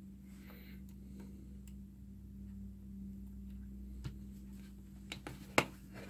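Light plastic clicks from a capacitor being fitted into a handheld T7 multi-function component tester and the tester being worked: one about four seconds in, a few just after five seconds, and one sharp click, the loudest, shortly before the end. A steady low hum runs underneath.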